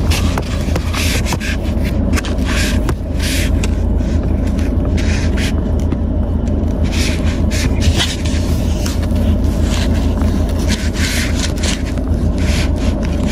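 Irregular scraping and rubbing of a hand handling a phone against its mount, over the steady low rumble of a car heard from inside the cabin.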